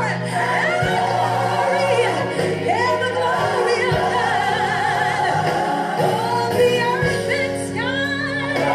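Gospel song playing: singing voices with wide vibrato over a sustained accompaniment.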